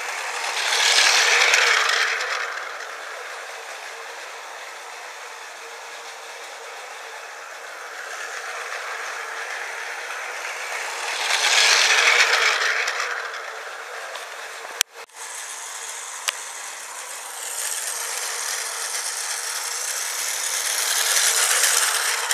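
Battery-powered Tomy Plarail toy train's small motor whirring and its wheels rattling on blue plastic track. The sound swells three times as the train passes close: about a second in, about twelve seconds in, and near the end. There is a sharp click with a brief dropout about fifteen seconds in.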